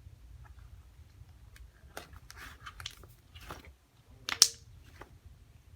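Butter slime being squished and worked in the hands, giving irregular wet clicks and crackles, with one sharper, louder pop a little past the middle.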